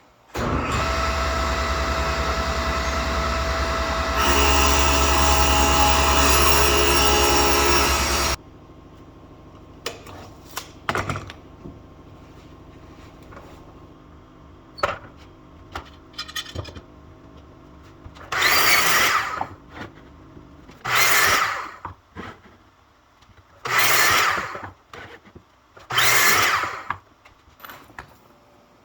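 Power tools: one runs steadily for about eight seconds, getting louder about four seconds in, then cuts off. After a few clicks and knocks come four short bursts of about a second each, like a drill run in quick trigger pulls.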